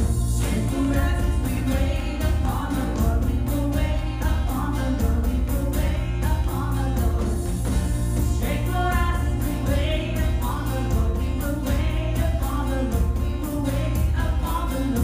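A worship song: several voices singing together over instrumental backing with a steady beat.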